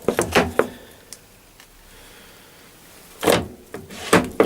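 A few knocks and scrapes from hands working over a metal machine: a quick cluster at the start, a pause, then a longer scrape a little after three seconds and more knocks near the end.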